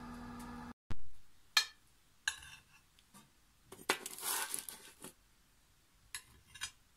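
Metal spoon clinking and scraping against a metal baking tray and a glass dish as baked cookies are lifted off the tray: a handful of separate clinks, with a longer scrape about four seconds in. A steady hum fills the first second and cuts off abruptly.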